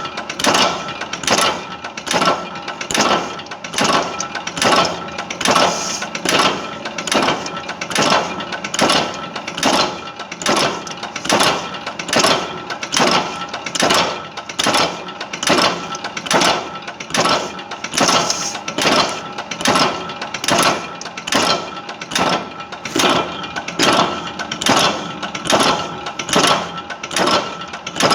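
Chain-making machine running steadily: an even, fast mechanical clatter, several strokes a second, over a steady whine.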